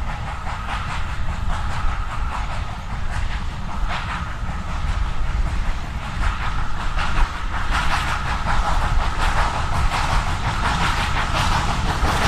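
Steam train running along the line: a steady, loud rumble with hiss.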